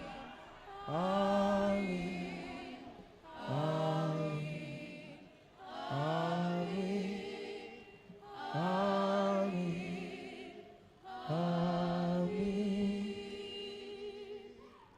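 A single unaccompanied melodic line, sax-like or sung, in slow repeated phrases about every two and a half seconds, each scooping up into a held note with vibrato and fading away.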